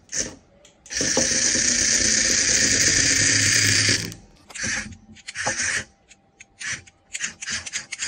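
Remote-control toy cockroach's small geared motor whirring as it scuttles: one long run of about three seconds, then a string of short bursts as it is driven in quick spurts.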